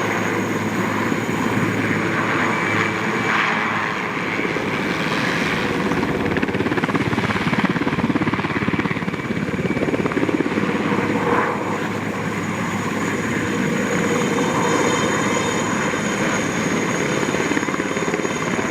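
Aérospatiale SA-330L Puma twin-turbine helicopter in flight, its rotor chopping fast with a steady high turbine whine over it. The sound swells a little about halfway through.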